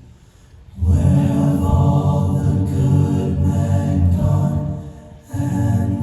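Vocal group singing held chords. The singing comes in about a second in and breaks off briefly near the end before resuming.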